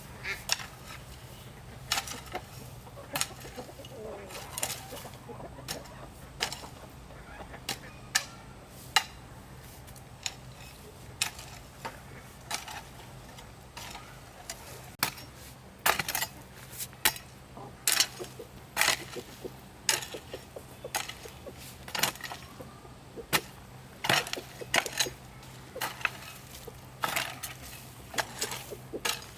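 A series of irregular sharp clicks and knocks, like light objects being handled or struck, coming faster in the second half, over a steady low hum.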